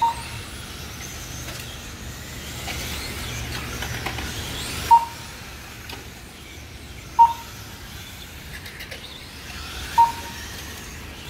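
Radio-controlled race trucks running on the track, their motors making faint whines that rise and fall with the throttle. Four short electronic beeps cut through at uneven intervals: the lap-timing system registering cars crossing the line.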